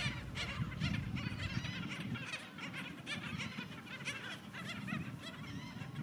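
A flock of black skimmers calling: many short call notes overlapping one another, repeated throughout, over a low background rumble.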